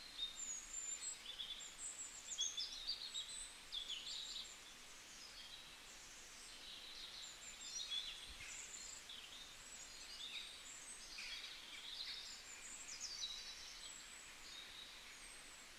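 Small birds chirping and whistling, a steady run of short high calls with quick rising and falling sweeps, busiest in the first few seconds.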